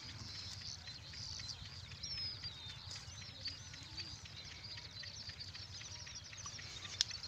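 Small birds chirping and twittering continually in high, quick calls over a low steady rumble, with a single sharp click near the end.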